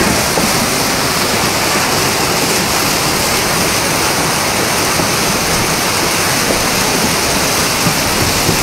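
Muddy floodwater rushing down a street in a fast torrent, a loud, steady rush of water.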